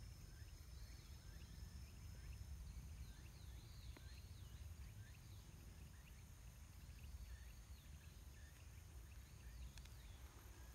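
Faint outdoor ambience: small birds chirping again and again over a low rumble, with a steady high whine that stops a couple of seconds in.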